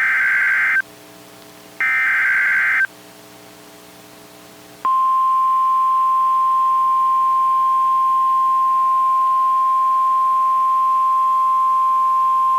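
Emergency alert header on NOAA Weather Radio. The last two of the three one-second screeching bursts of SAME digital data come about a second apart. About five seconds in, the single steady 1050 Hz weather-radio warning alarm tone starts and holds, announcing a new warning.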